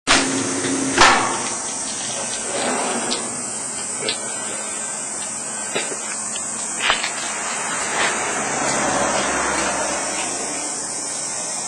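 Comb-blade food slicing machine running with a steady hiss and a string of irregular sharp knocks, the loudest about a second in.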